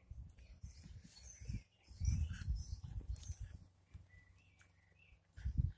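Small garden birds chirping and tweeting, with irregular low rumbles underneath and a brief louder one near the end.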